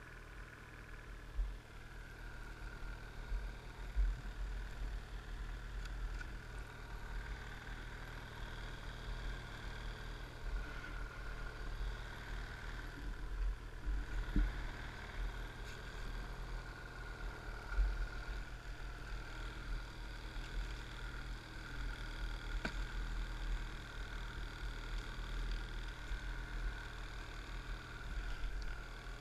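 Ski-Doo snowmobile's Rotax 800R E-TEC two-stroke engine running steadily, with an uneven rumble of buffeting on the microphone underneath.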